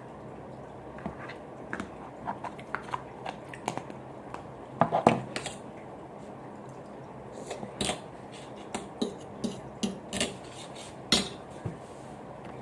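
Plastic Play-Doh molds and tools being handled on a table: irregular light clicks and taps, with a louder cluster about five seconds in and a sharp knock near eleven seconds.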